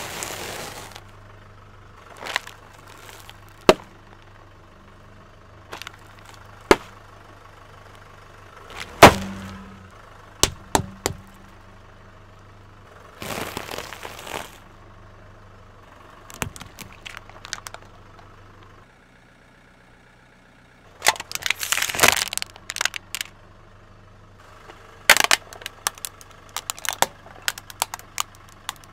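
A car tyre rolling over and crushing crunchy snacks and small plastic objects on asphalt: scattered sharp cracks and crunches, with dense crackling spells in the second half, over a steady low hum from the idling car engine.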